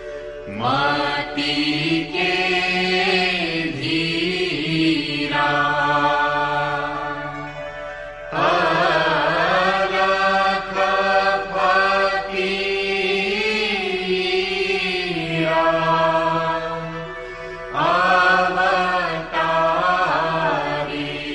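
A Guru Vandana, a devotional hymn of salutation to the guru, sung in a chanting style. The voice sings three long phrases of held, gliding notes, starting about half a second, eight seconds and eighteen seconds in, over a steady drone.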